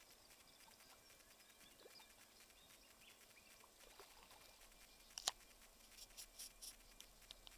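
Near silence, broken by a handful of faint, short clicks in the second half, the sharpest about five seconds in.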